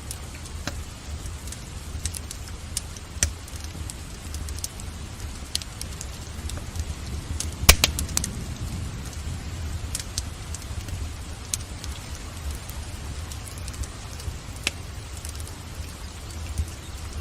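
Wood fire in a fireplace crackling, with scattered sharp pops and one loud crack about eight seconds in, over a steady hiss of rain and a low rumble.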